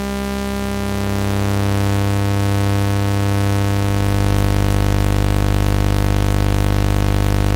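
Oscilloscope-music audio signal: a steady, buzzy synthesized drone of mixed sawtooth, sine and square waves. It is the stereo signal that traces moving mushroom shapes on an XY oscilloscope. Its deep low hum grows stronger about four seconds in.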